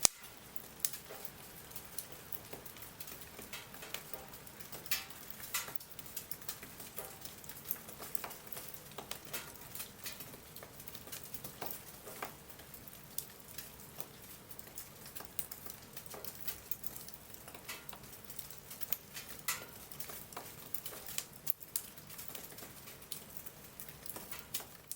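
Wood bonfire crackling, with irregular sharp pops and snaps over a steady hiss.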